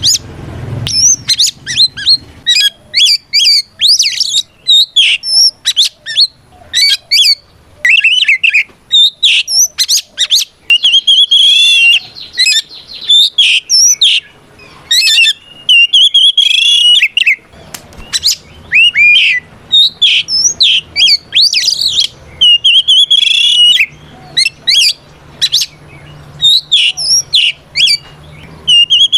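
Oriental magpie-robin singing a loud, varied fighting song of rapid whistles, chirps and trills in quick phrases with short pauses. It is a challenge song calling out a rival male.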